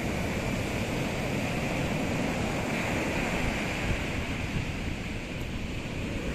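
Atlantic surf breaking along the shore and washing up over the sand, a steady rushing noise with a deep rumble.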